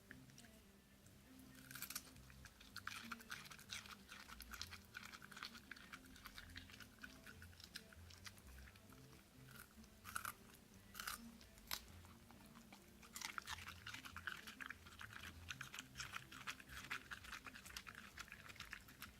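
A West Highland white terrier chewing cucumber: runs of quick, crisp crunching, with a few louder single bites around the middle.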